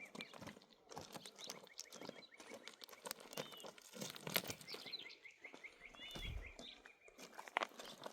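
Irregular light crackling and snapping clicks, with a small bird chirping in quick even runs of short high notes, once near the start and again about five seconds in.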